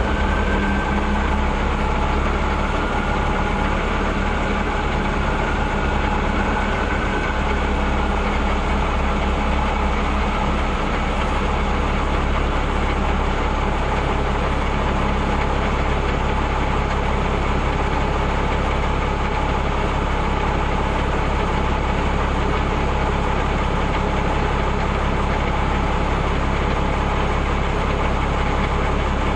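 Engine of an M35 'Reo' 2½-ton army truck running steadily, with an even, unchanging note and no revving.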